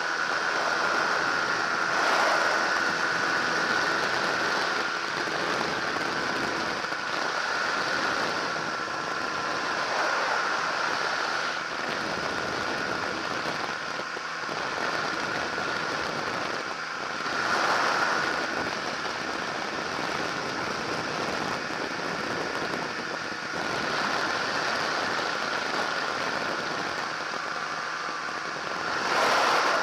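Microlight trike's engine and propeller running steadily in flight, a constant droning tone under heavy wind rush on the microphone. The rush swells briefly a few times.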